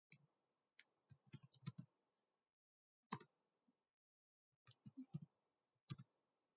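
Faint computer keyboard typing: separate key clicks, a quick run of them in the first two seconds, then single clicks and small groups.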